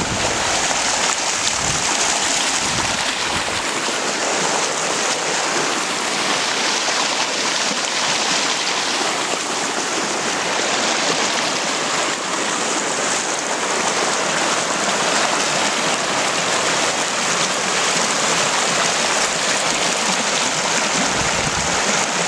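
Muddy flash-flood runoff rushing across a field and along fence lines: a steady, loud rush of flowing water.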